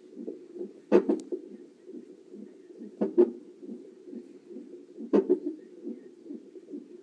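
Fetal heart Doppler on a CTG monitor: the unborn baby's heartbeat as a fast, steady pulsing sound. Three times, about every two seconds, it is broken by a loud, sharp double thump from the baby's hiccups.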